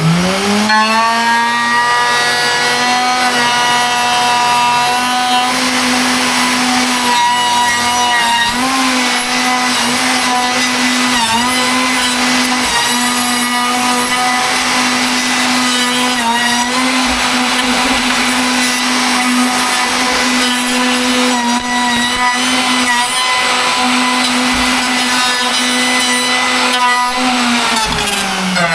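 Electric wood router spinning up, running at a high steady whine while cutting timber, its pitch dipping briefly a few times under load, then switched off and winding down near the end.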